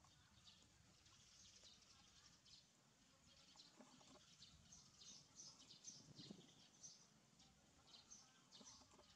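Near silence: faint outdoor background with scattered quiet high chirps.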